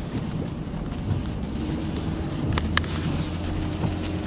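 Car engine and road rumble heard from inside the cabin while driving, with a steady engine hum coming up about a second and a half in as the car gets under way. Two sharp clicks sound close together just past the middle.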